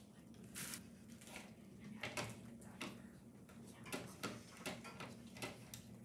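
Paintbrush dabbing and scrubbing on watercolour paper, giving short, irregular scratchy strokes, over a faint steady low hum.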